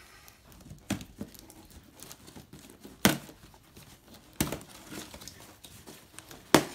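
Cardboard box being opened by hand: a crinkly rustle of cardboard and packing with four sharp snaps and knocks as the flaps are pulled and torn open, the loudest about three seconds in.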